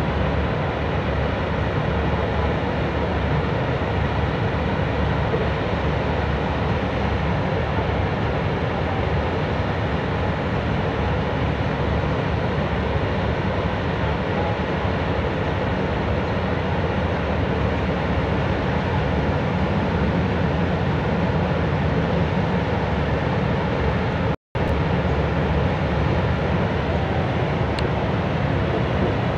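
Steady, loud machinery rumble with a rushing hiss over it. The sound drops out for a split second about three quarters of the way in.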